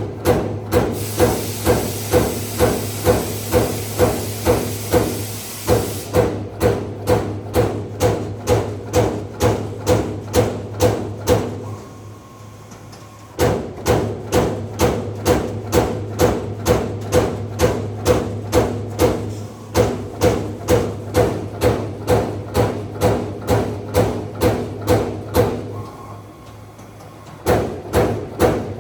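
Servo-electric CNC turret punch press punching sheet metal in a steady run of sharp hits, about two to three a second, over a constant machine hum. The hits pause twice for about a second and a half, and a hiss rides along during the first few seconds.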